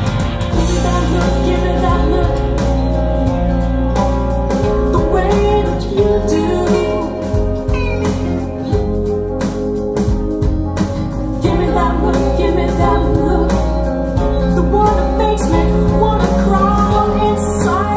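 A pop song with a woman singing, played back through a pair of Bowers & Wilkins 706 S2 two-way bookshelf speakers as a listening demo.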